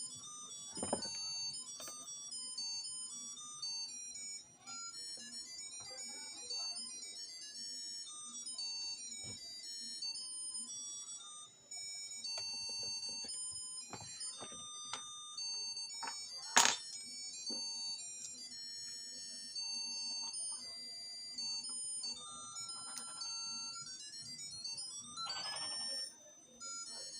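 A tinny electronic jingle of short, high beeping notes in quick stepwise runs, like a cheap music chip, with scattered clicks and one sharp knock about two-thirds of the way through.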